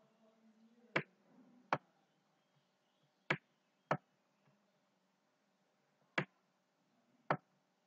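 Computer mouse button clicking: six sharp single clicks at uneven intervals.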